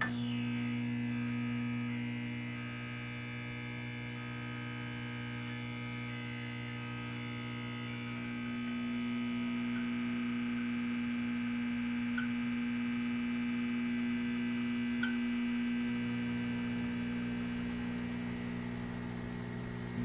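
A steady electronic hum with many overtones, deepest near the bottom. Its upper tones shift slightly a few times, and a few faint ticks sound over it.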